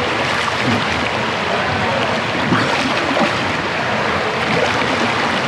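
Swimmer splashing through the water, arm strokes churning the surface, over a steady wash of pool-water noise.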